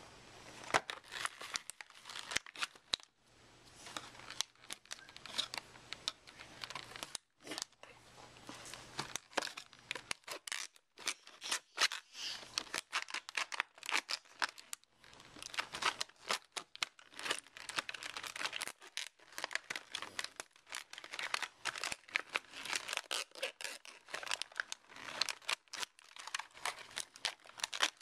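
Trash Pack toy packaging being opened by hand: plastic and paper wrapping crinkling and tearing irregularly, with a few short pauses.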